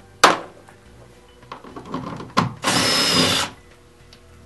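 Cordless drill with a 10 mm socket spinning for about a second, backing out a seat-back bolt, with a high whine over its whir. A sharp knock comes near the start, with a few small clicks after it.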